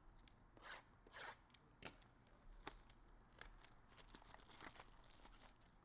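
Faint tearing and crinkling of trading-card packaging as a Bowman Sterling mini box is opened, a string of short rustles and small taps.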